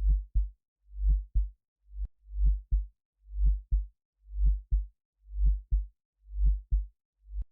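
Heartbeat sound effect: deep lub-dub pairs, a longer low beat followed closely by a shorter one, repeating steadily about once a second.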